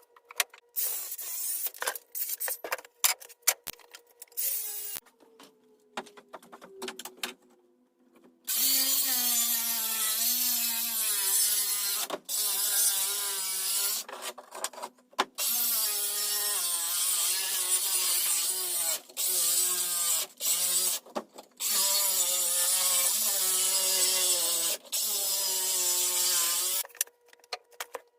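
Short scrapes and knocks on wood, then a power tool cutting or boring into wood in long runs of a few seconds each, its pitch wavering under load and stopping briefly between runs.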